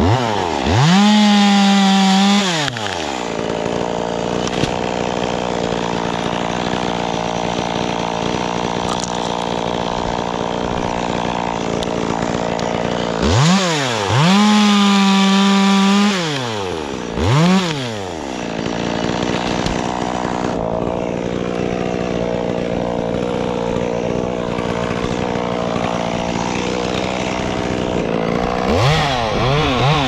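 Stihl chainsaw revved to full throttle and held for a couple of seconds, about a second in and again around 14 seconds, with short revs near 17 seconds and near the end, running at a steady lower speed in between.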